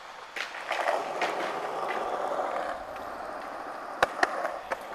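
Skateboard wheels rolling steadily on concrete, with a few scraping strokes from the pushing foot in the first second or so. About four seconds in come two sharp clicks in quick succession, the loudest sounds.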